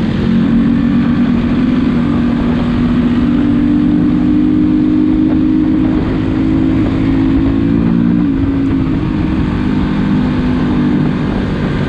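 Dirt bike engine running steadily, its pitch dipping a little about eight seconds in.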